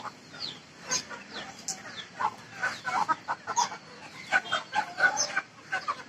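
A group of young Aseel chickens clucking and chirping, with many short calls overlapping and coming thicker a little past the middle.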